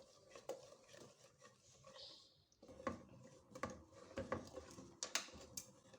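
Faint scattered knocks and clinks of a cooking pot and spoon as a lemon-and-sugar jam mixture is handled and stirred, with a brief hiss about two seconds in.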